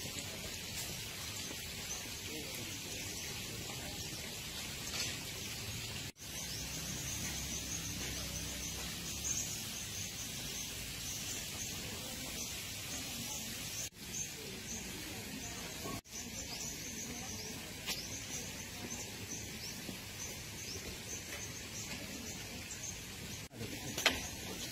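Outdoor ambience: steady background noise with small birds chirping high and often. It has a few brief dropouts, and there is one sharp knock near the end.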